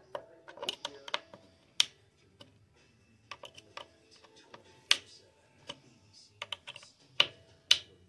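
Small flathead screwdriver clicking and scraping in the Phillips screws of a Garrett AT Pro's plastic control housing as they are checked for tightness: a scatter of irregular sharp clicks and taps.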